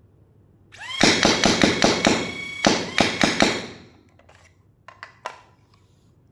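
AIT Lightning foam dart blaster firing a full-auto burst, emptying a ten-dart magazine. Its motors spin up with a short rising whine about a second in, then about a dozen darts go out in quick succession, four to five a second, over roughly two and a half seconds. A couple of light clicks follow.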